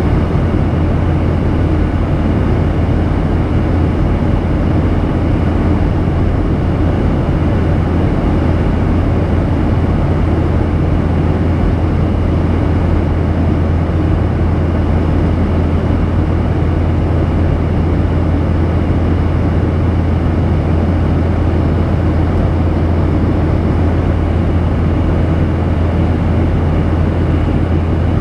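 Steady in-flight cabin noise of a Boeing 737-800 heard from a window seat over the wing: its CFM56-7B turbofans and the airflow make a strong low hum under an even rush, unchanging throughout.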